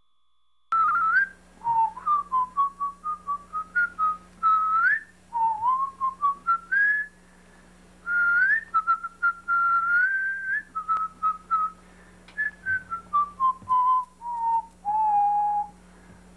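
A person whistling a tune: a lively run of short notes with pitch slides between them, starting about a second in.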